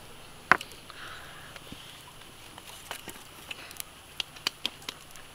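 Cooking fire crackling under a spit-roasted duck: scattered sharp pops over a faint hiss, one loud pop about half a second in and a quick run of pops near the end.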